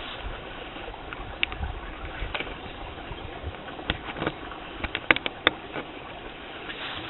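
Handling noise from a Browning trail camera being touched up close: scattered clicks and knocks of fingers on its case, several in quick succession about five seconds in, over a steady hiss.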